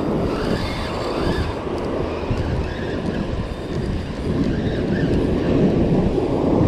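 Wind buffeting the microphone over the steady rumble of surf breaking on a sandy beach.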